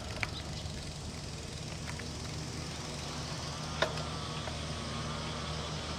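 Steady wind and tyre rumble on a clip-on mic worn by a cyclist riding a road bike, with a few light clicks and a faint wavering tone in the second half.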